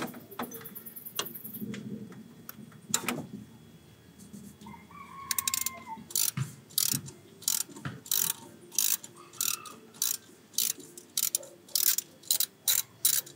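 Hand ratchet wrench undoing the idler pulley bolt, with a few knocks as the tool goes on, then its pawl clicking in a steady run of sharp clicks about twice a second from roughly five seconds in.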